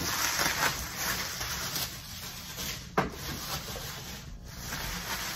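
Plastic bubble wrap rustling and crinkling as it is handled and pulled out of a box, with one sharp click about three seconds in.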